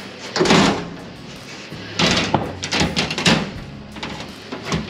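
A large sheet of .090 aluminum being slid and set down onto a jon boat's aluminum deck frame: scraping and knocking of sheet metal, one loud burst about half a second in and a longer run of scrapes and knocks from about two to three and a half seconds.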